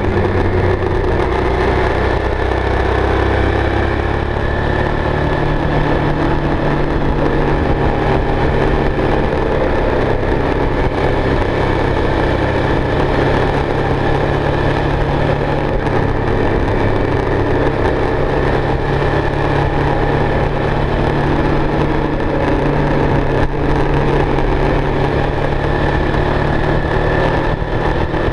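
Motorcycle engine running at road speed, its pitch rising and falling a little through the bends, under steady wind and road rumble on the bike-mounted microphone.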